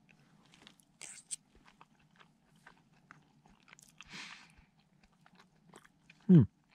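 A person chewing a mouthful of cold lentil stew, with light clicks of a spoon in a plastic tray. Near the end comes a short, loud hum of the voice, falling in pitch.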